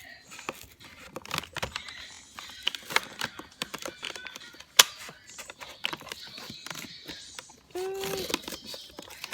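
Cardboard and tape being handled and worked: scattered clicks, taps and crinkling, with one sharp click about five seconds in. A short hummed voice note near the end.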